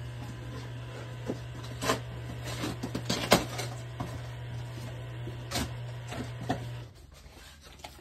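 Steady low hum of a Samsung front-load washer's drain pump running during a spin-only cycle, cutting off about seven seconds in, with a few knocks and rustles of handling over it. The pump is working against a clogged drain filter, which keeps the washer from draining and spinning.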